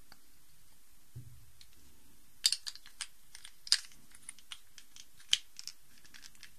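Plastic Rubik's cube pieces clicking as they are handled and pressed back into the cube during reassembly. After a soft knock about a second in, a run of sharp, irregular clicks starts about two and a half seconds in.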